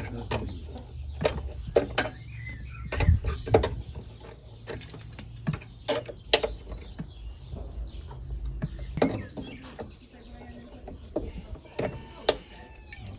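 Irregular sharp clicks and knocks of hand work on car body metal, over a low rumble that fades about nine seconds in.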